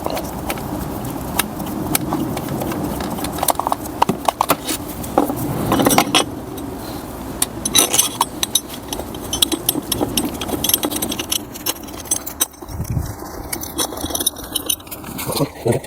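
Irregular metallic clicks and clinks of hand tools and bolts working on the engine, as a bolt is taken out and a bracket fitted.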